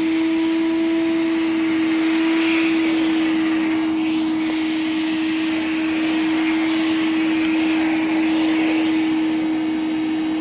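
Milwaukee M12 1.6-gallon cordless wet/dry vacuum (0960-20) running on low speed, sucking up a pile of coconut fiber substrate. It gives a steady, even motor hum over the rush of air through the hose.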